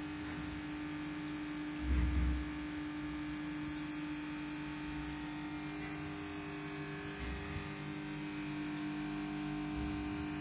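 Steady electrical hum of running aquarium equipment, such as a filter or air pump, holding one constant tone. A brief low thump about two seconds in.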